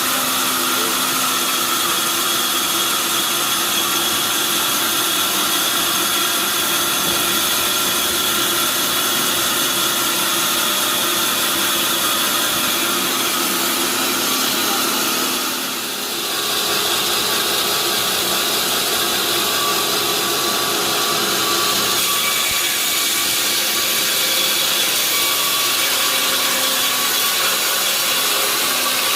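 Sawmill saw cutting through a large mahogany log: a steady rushing cut with a whining tone, with one brief dip in level about halfway through.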